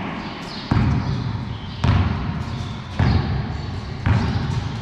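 Basketball bouncing on a concrete floor, four slow, evenly spaced bounces about a second apart, each one echoing in the big hard-walled space.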